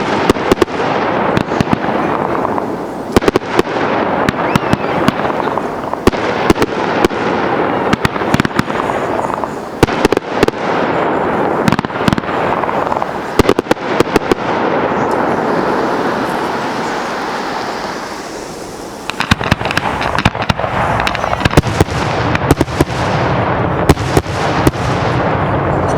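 Professional fireworks display at full barrage: a dense, continuous run of sharp bangs from bursting shells and cakes over a steady wash of crackle and rumble. About nineteen seconds in, the deep rumble jumps up and the bangs come even thicker.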